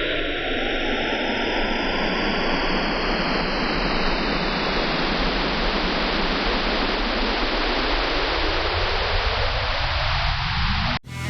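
Synthesized sci-fi 'alien stalker' sound effect: a loud, dense hiss whose lower edge slowly sweeps down and then back up. It cuts off suddenly near the end.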